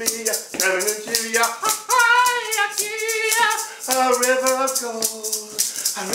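Wooden maraca shaken in a steady rhythm while a man chants wordlessly, his voice sliding and wavering in pitch.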